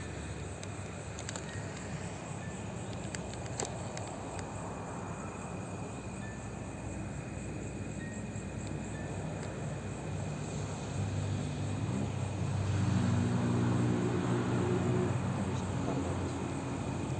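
Crickets and other night insects trilling steadily, with a motor vehicle engine hum coming in about two-thirds of the way through and growing louder.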